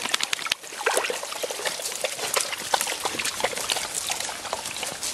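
Water splashing and trickling in a yellow plastic tub as a puppy wades in it, with many small irregular splashes.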